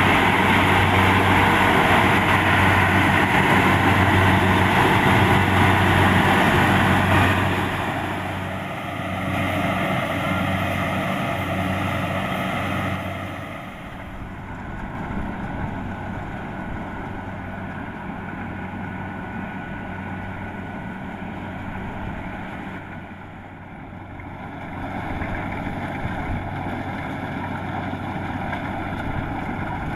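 Kubota DC-70 Plus combine harvester's diesel engine running steadily as it harvests rice, loud for the first seven seconds or so, then dropping away and swelling again near the end.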